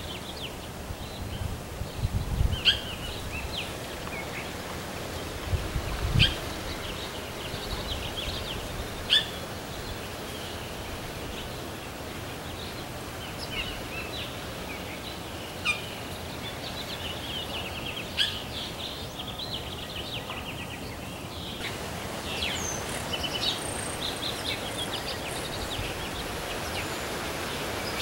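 Small songbirds chirping, trilling and warbling over a steady outdoor background hiss, with busier, harsher calling in the last several seconds. There are a couple of low thumps, about two and six seconds in.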